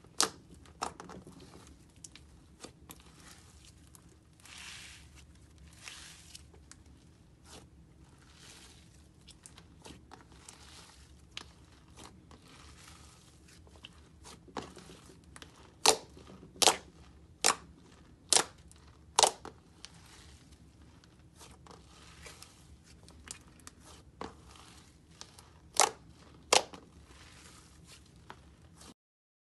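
Thick, opaque yellow slime being kneaded and squeezed by hand: a soft crinkly squishing with sharp popping clicks as air pockets in the slime burst. A loud pop comes right at the start, a run of five pops about a second apart comes midway, and two more come near the end.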